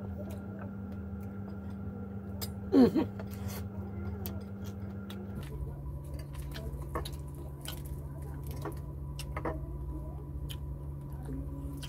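Mukbang eating sounds: scattered small clicks and smacks as fingers pick apart fried tilapia and rice and the mouth chews, with one short voiced sound about three seconds in. A steady low hum lies under it and drops in pitch about halfway through.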